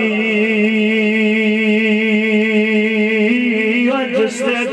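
A man singing one long held note of a Punjabi devotional verse, with a slight waver. The note steps up a little about three seconds in, then moves into a winding melodic line near the end.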